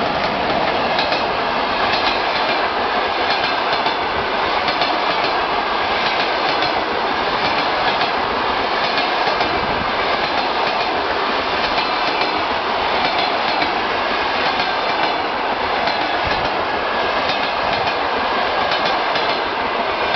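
Coaches of an express passenger train rolling past close by at speed, a steady rush of noise with the wheels clicking and clattering over the rails.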